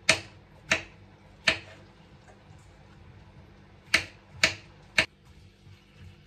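Kitchen knife slicing button mushrooms on a wooden cutting board: six sharp chops, three in the first second and a half, then a pause, then three more about four to five seconds in.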